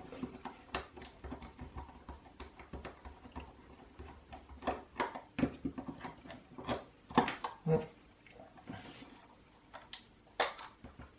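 A screwdriver backing out the two case screws of an Amiga tank mouse, with irregular light clicks and scrapes from the plastic case being handled and a few louder ticks.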